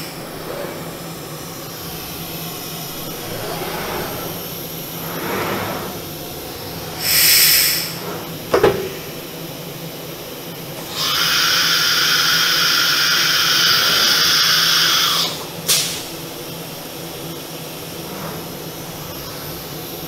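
CNC router's linear automatic tool changer swapping bits. The gantry motors hum and whir as the spindle travels to the tool rack. About seven seconds in there is a short hiss of compressed air followed by a sharp clack. Then comes a longer hiss of air, about four seconds, ending in another clack, as the pneumatic spindle releases one bit and clamps the next.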